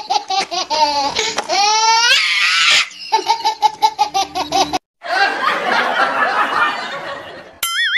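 Laughter sound effects: a rapid, pulsing laugh that slides up in pitch, then after a brief break a looser burst of laughter from several voices. A short warbling tone enters near the end.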